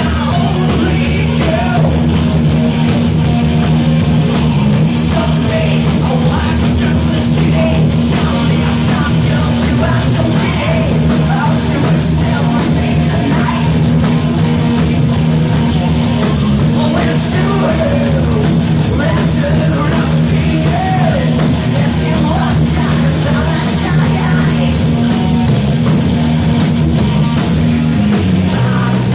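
Loud rock music played live, with full band and sung vocals, in a punk-rock style.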